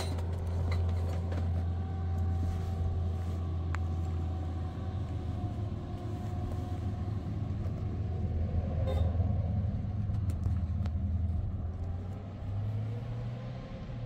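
A steady low rumble, with a few faint clicks over it.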